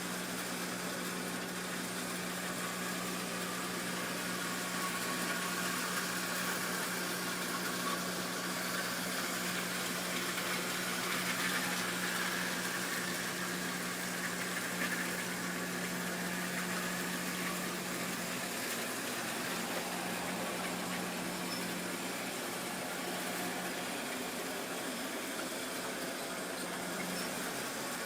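Model railway train running along the track: a steady electric motor hum with the rattle and hiss of wheels on the rails, growing a little louder about halfway through and then easing off again.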